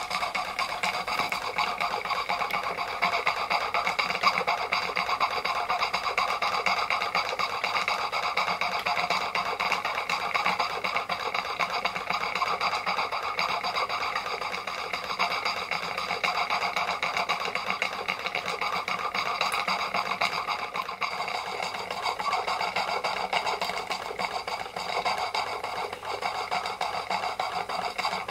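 Märklin 16051 compound twin-cylinder horizontal stationary steam engine running on live steam: a fast, even mechanical clatter with steady ringing tones over it.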